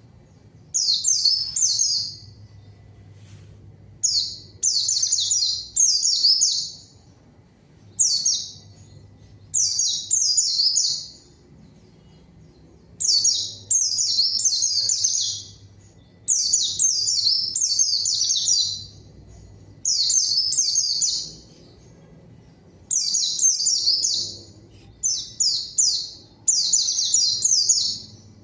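White-eye (pleci) singing vigorously in rapid, high twittering phrases of one to two seconds each, repeated with short pauses.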